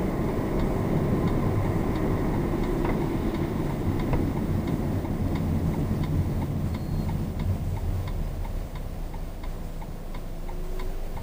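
A 2011 Jeep Patriot's hazard flasher ticking steadily, heard inside the cabin over the low drone of the moving car. The drone eases off in the last few seconds.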